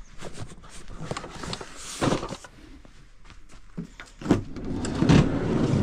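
A box of hand tools being carried and loaded into the back of a van: scattered knocks and clinks of metal tools, with louder scraping and shuffling about two seconds in and again near the end.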